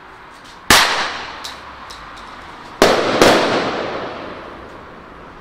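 15 mm pyrotechnic bombette shot from a Röhm RG 96 blank pistol. A sharp bang comes about 0.7 s in, and two more bangs follow close together about two seconds later. Each bang trails off in a long echo.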